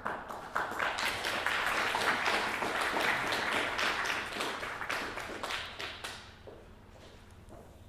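Audience applauding, a dense patter of many hands that dies away about six seconds in.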